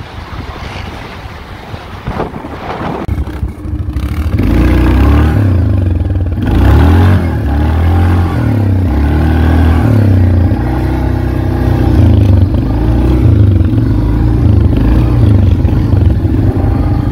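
ATV engine running under throttle, its pitch rising and falling again and again as it revs up and eases off. It is quieter for the first few seconds and gets loud from about four seconds in.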